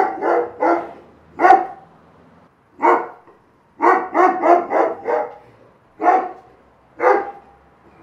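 Dog barking in short runs of quick barks and single barks with pauses between them: a recorded dog-bark alarm signalling that a countdown timer has run out.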